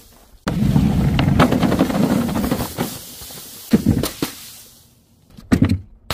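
Powder- and paint-filled objects dropped from a height and bursting on a hard floor. A sudden smashing, scattering noise about half a second in fades over two seconds or so, then come two sharp impacts half a second apart and another pair of hits near the end.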